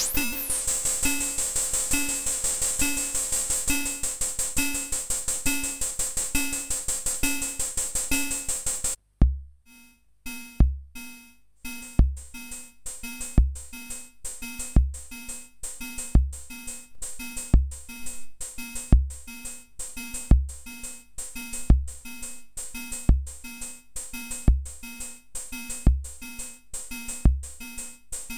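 A DIY XORbell module, with 40106 CMOS oscillators mixed through 4070 XOR gates, making noisy metallic cowbell and hi-hat tones. First comes a rapid stream of metallic ticks over ringing tones while its knobs are turned. About nine seconds in this stops, and a sequenced beat starts: a deep kick drum about every one and a half seconds, with quicker metallic cowbell-like hits between.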